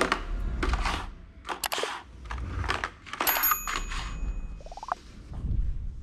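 Clear plastic blister packaging for RAM and an SSD being handled, crackling and tapping in quick irregular bursts. A short high chime rings a little past halfway, and a quick rising tone sounds near the end.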